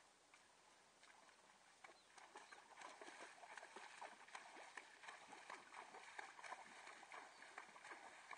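A horse's hooves splashing through shallow water. After a few light ticks, a steady run of splashes sets in about two seconds in as the horse moves through the water.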